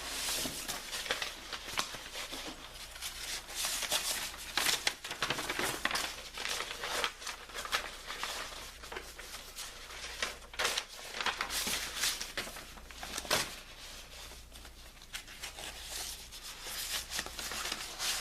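Brother inkjet printer's mechanism working through a print-head cleaning cycle, a run of irregular clicks, rattles and rustling over a low steady hum.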